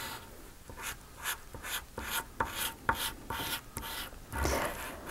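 A pastel stick scrubbing back and forth on paper while colouring in a shape: quick scratchy rubbing strokes, about three a second, with a heavier scrub and a light bump on the table near the end.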